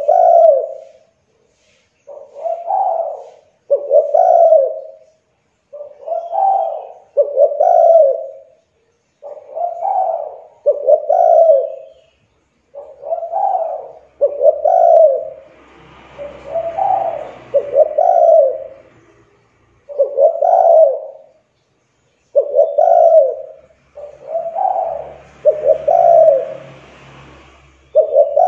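Spotted dove cooing: a run of low coos, about one every one and a half to two seconds, some coming in close pairs. A faint hiss of background noise rises under the cooing twice, around the middle and near the end.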